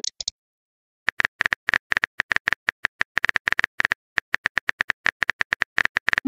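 Rapid clicks from a simulated phone keyboard typing out a text message, one short bright tick per key at about seven a second, starting about a second in after a short pause.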